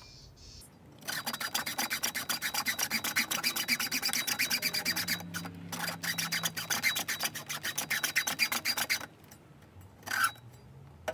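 A blade sawing through a car battery cable in fast, even back-and-forth strokes, several a second, cutting off the old terminal end. The sawing stops about nine seconds in, followed by one short scrape near the end.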